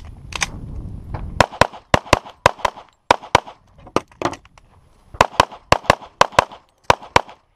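Handgun fired rapidly in quick pairs: about eighteen shots in nine doubles, starting about a second and a half in, with a short pause a little after four seconds in.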